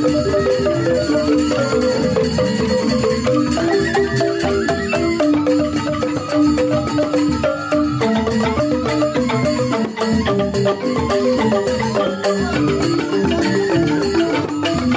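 Balinese joged bumbung gamelan: bamboo xylophones (grantang) playing fast, rapidly repeating interlocking note patterns, with a bamboo flute (suling) over them.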